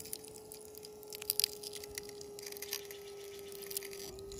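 Epoxy around a glued-in climbing bolt crackling and crunching in scattered clicks as the bolt is pulled under load, over a steady whine that dips slightly in pitch near the end.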